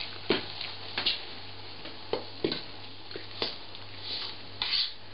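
Fork clicking and scraping against the mixing bowl while stirring water and oil into flour and semolina, forming a shaggy bread dough. The clicks are sharp and irregular, about one a second, some followed by a short scrape.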